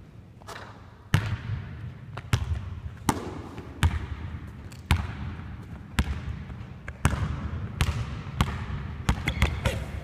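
A basketball dribbled on a hardwood court, each bounce a sharp smack about once a second that rings on in a large empty arena. A few short squeaks come near the end.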